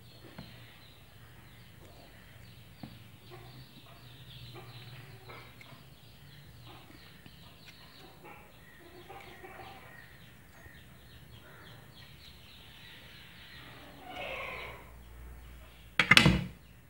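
Faint clucking chickens and calling birds over the soft sounds of orange peel being torn off by hand. Near the end comes one sharp, loud knock.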